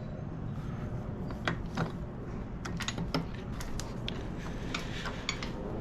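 Light metallic clicks and taps, irregular and scattered, from engine parts and hand tools being handled while fitting parts onto the magneto side of a dirt-bike engine.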